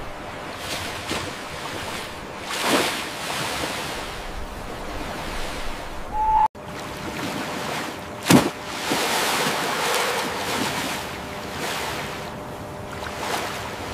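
Ocean waves and surf: a steady rush of water that swells now and then, with one sharp, loud whoosh about two-thirds of the way through.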